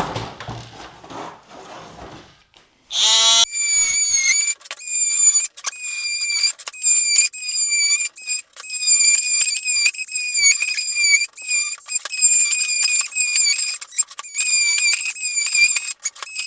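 Oscillating multi-tool cutting through a plastic milk crate: a high-pitched squealing whine that keeps stopping and restarting as the blade is pushed along the cut, after a few seconds of rustling handling noise.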